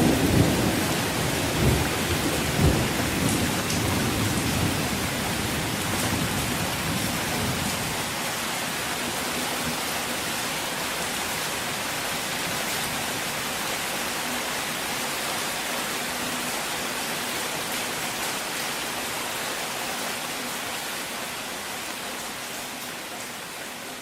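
Rain falling steadily as an even hiss, with a low thunder rumble dying away over the first several seconds. The rain then slowly fades out toward the end.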